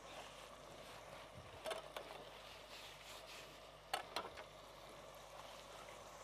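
Faint steady sizzle of hot frying oil, with sharp clinks of kitchen utensils in two quick pairs, about two seconds and four seconds in.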